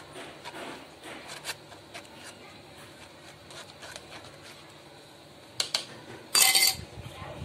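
A spoon scraping and pressing blended cucumber pulp in a mesh strainer to push the juice through, with scattered light clicks. Near the end come two sharp clicks and then a short, loud clatter of utensils.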